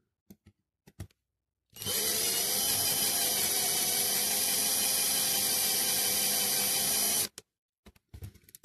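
Cordless drill running steadily for about five and a half seconds, its bit drilling out the rivet that holds a die-cast toy car's baseplate, then cutting off. A few light clicks of handling come before and after.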